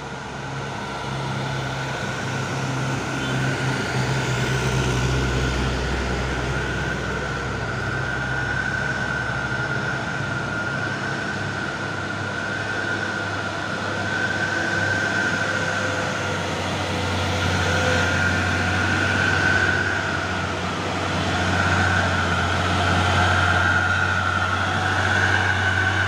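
Heavy truck engines labouring up a steep climb: a low steady drone that drops in pitch about ten seconds in, with a steady high whine above it, growing louder as the trucks come closer.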